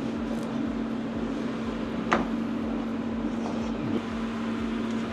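Steady machine hum from a kitchen appliance, with a sharp click about two seconds in and a fainter one near four seconds.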